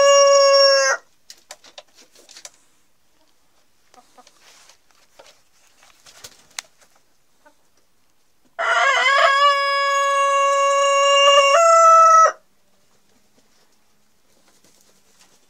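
Rooster crowing: the tail end of one crow at the very start, a few faint clicks and scuffles, then one long drawn-out crow of nearly four seconds that holds a steady pitch and steps up briefly before it cuts off.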